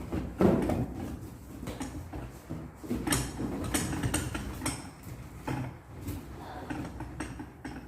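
Irregular knocks, clicks and rustling of things being handled, with the loudest knock about half a second in.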